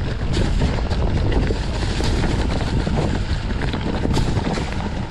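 Wind buffeting the microphone over the rumble and clatter of a mountain bike riding a rocky singletrack descent, with a steady low roar and many small rattles.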